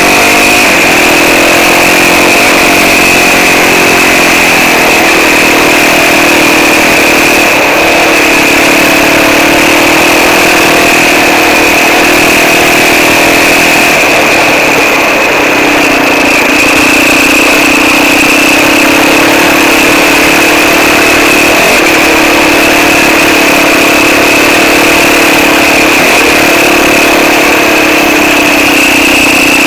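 Quad bike (ATV) engine running while riding, loud and close, its pitch shifting a little with the throttle, with a steady high whine and a constant rushing noise underneath.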